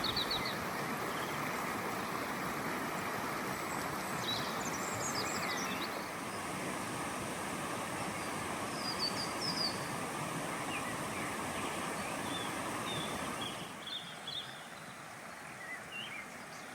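Steady rush of flowing river water with small birds chirping now and then. About 14 seconds in the rushing drops away, leaving fainter water and birdsong.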